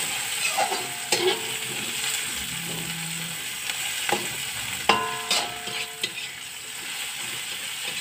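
Sliced garlic, shallots and chillies sizzling in hot oil in a wok while a long metal spatula stirs them, scraping and knocking against the pan a few times; after some of the knocks the wok rings briefly. This is the spice base being sautéed before the tempeh goes in.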